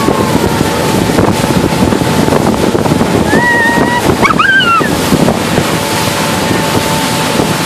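Speedboat under way: a steady run of engine and rushing water, with heavy wind buffeting on the microphone. A brief high-pitched voice glides up and down near the middle.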